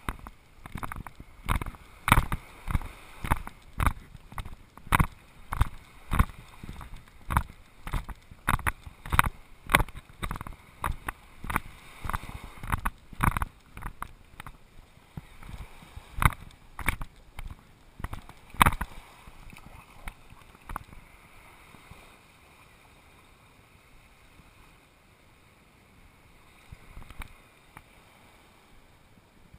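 Footsteps of someone walking on sand, about two steps a second, heard as thuds through the camera; they fade out about twenty seconds in, leaving a faint steady hiss.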